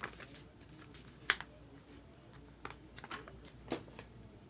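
Hands handling a plastic trading-card holder on a table: scattered light clicks and taps, one sharper click about a second in and a few more near the end.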